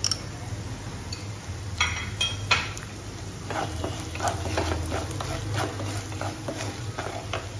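Wooden spatula stirring and scraping vegetables in a non-stick kadai, with short irregular knocks against the pan. A few sharper clicks come about two seconds in. A low steady hum runs underneath.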